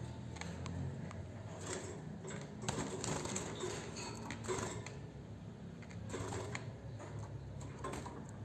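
Small cage birds moving about in wire cages, making irregular light clicks and rattles over a low steady hum.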